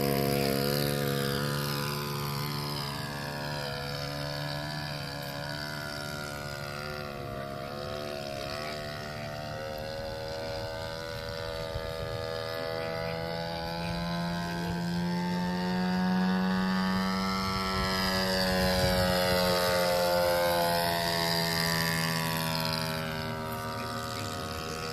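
Radio-controlled Piper J-3 Cub float-plane model in flight, its motor and propeller making a whine that rises and falls in pitch several times as the plane circles and passes.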